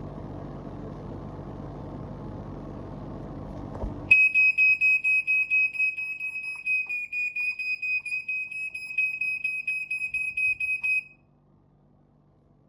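EI 3500 battery-powered ionisation smoke detector sounding its alarm, set off by smoke in a smoke test: a piercing high beeping tone, pulsing quickly, that starts about four seconds in and stops suddenly about seven seconds later. Before it there is a steady low rushing noise.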